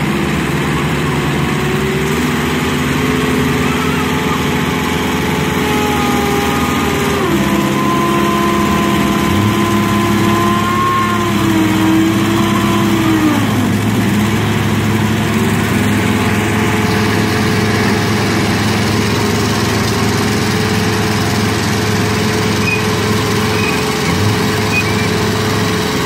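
Engines of heavy crane trucks running steadily under load while hoisting an overturned tanker, the engine note dropping about 7 seconds in and again around 13 seconds, then rising back up a few seconds later.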